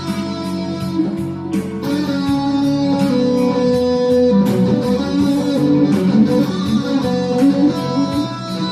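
Guitar music: a guitar playing sustained melodic notes over a backing with a steady beat.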